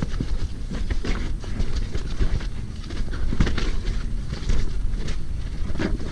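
Hardtail mountain bike descending a rough dirt trail: a constant low rumble of tyres and wind on the microphone, broken by irregular rattles and knocks from the bike as it goes over bumps.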